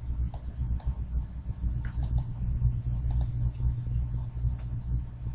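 Computer mouse clicks: about seven short, sharp clicks, some in quick pairs, over a steady low hum.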